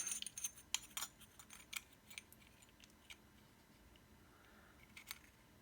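Light clicks and taps of small parts of a vape box mod being handled and fitted, several in the first two seconds and a few more near the end, quiet between.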